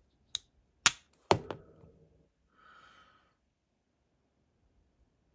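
Maxace Beetle S slip-joint folding knife's blade snapping through its stops against the backspring: three sharp clicks within about a second, the last with a brief ring. The clicks come from the extra tang corners that give the action its extra stops.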